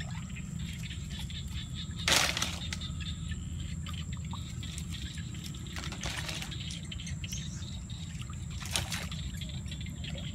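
Shallow muddy water sloshing and splashing around a wader's legs, in short bursts about two, six and nine seconds in, the first the loudest, over a steady low rumble.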